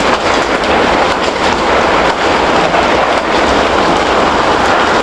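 Hailstones pelting down in a heavy hailstorm: a loud, dense clatter of countless impacts.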